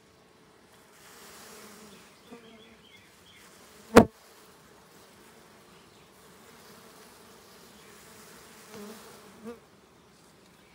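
A cluster of dwarf honeybees over their comb, buzzing steadily with a low hum. A single sharp knock sounds about four seconds in.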